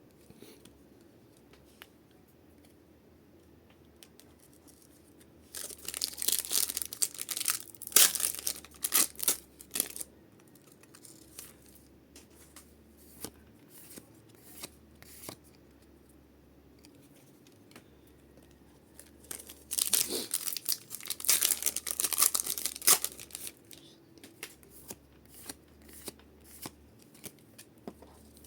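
Foil Pokémon card booster packs being torn open, in two bouts of loud tearing and crinkling about a quarter and three quarters of the way through, with small clicks and rustles of handling in between.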